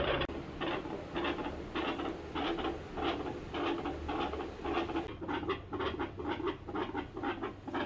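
A dog panting rapidly, picked up through a stethoscope on its chest: about three short breath strokes a second. The panting drowns out the heart sounds being listened for.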